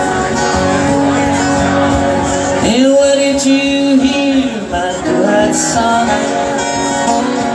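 Acoustic guitar strummed steadily in a live solo folk performance, with one long held wordless sung note through the middle that slides up into pitch and falls away at the end.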